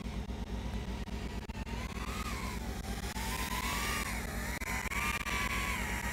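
Truck crane's diesel engine running with a steady low rumble, under the whine of a small FPV quadcopter's motors whose pitch wanders up and down as the throttle changes.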